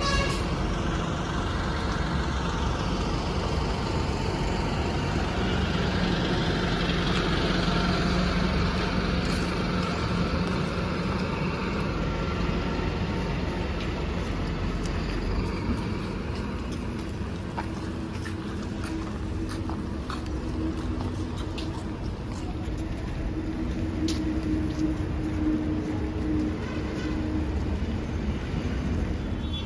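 Diesel engines of large passenger coaches running as the buses pull slowly through a stop: a steady low drone with engine notes that come and go.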